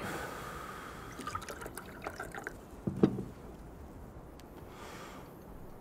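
Liquid poured into a glass, then a single sharp knock about three seconds in.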